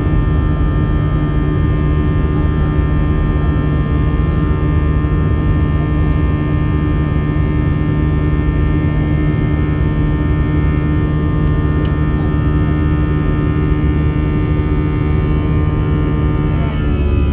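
Airbus A320's CFM56 jet engines running steadily, heard from inside the passenger cabin as a loud low rumble with several steady tones. Near the end the tones shift in pitch and the rumble grows louder, a change in engine power.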